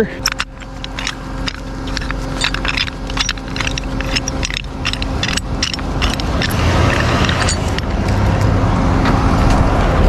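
Tow truck engine running as it drives over a rough, rutted trail, with loose items clattering and knocking over the bumps. The engine grows gradually louder, with a deeper rumble coming in about two-thirds of the way through.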